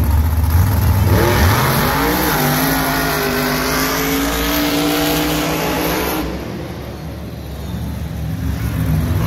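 Monster truck engine revving up about a second in, rising in pitch, then holding high revs before the sound drops away a little after six seconds.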